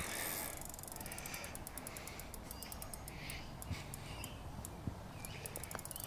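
Carp fishing reel clicking in short runs of fast, quiet ticks while a hooked carp is played on a bent rod.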